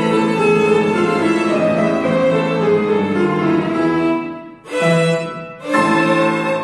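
Violin and piano playing the end of a piece: a sustained melodic passage that dies away a little past halfway, then two short final chords about a second apart, the last left to ring out.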